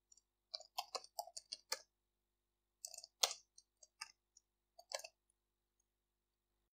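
Faint clicking of computer keyboard keys being typed: a quick run of about eight keystrokes in the first two seconds, then a few more spaced-out strokes up to about five seconds in.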